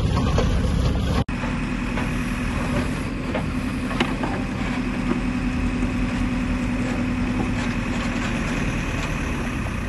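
JCB backhoe loader's diesel engine running steadily as its bucket digs soil out of a canal, with a few faint knocks.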